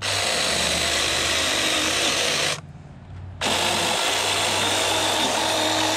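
Taranzy mini cordless electric chainsaw running as it cuts the lid out of a pumpkin, in two runs: it stops about two and a half seconds in and starts again under a second later.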